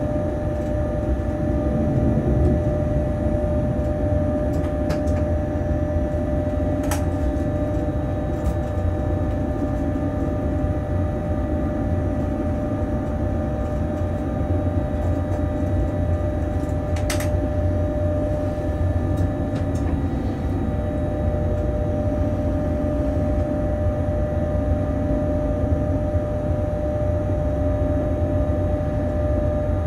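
Steady running noise in the cab of a Bombardier Traxx BR186 electric locomotive hauling a freight train: a low rumble with a steady hum. Two short sharp clicks come about seven and seventeen seconds in.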